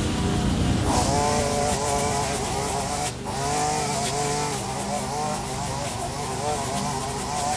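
Small petrol engine of yard equipment, such as a mower or string trimmer, running hard, its pitch rising and falling as it works through the grass, with a brief dip in speed about three seconds in.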